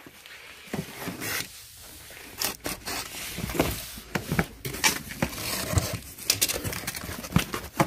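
Box cutter slicing through the packing tape along a cardboard box's seams, in a run of short, irregular scrapes and rips.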